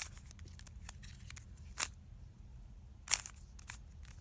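Plastic Rubik's cube layers being turned by hand: a string of sharp clicks, three of them loud and many fainter ticks between.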